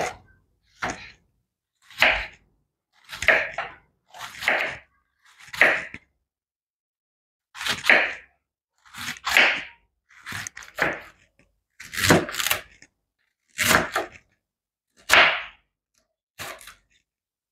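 A kitchen knife slicing through a raw cabbage onto a wooden cutting board, shredding it. About a dozen separate crunching cuts come roughly once a second, with a short pause about six seconds in.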